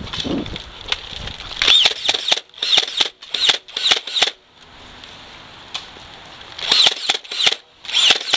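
Motorised Nerf Stampede blaster, fitted with a stronger spring and run on 14 V Trustfire batteries, firing darts in rapid bursts: a run of about six shots roughly two a second, a pause, then a few more shots near the end.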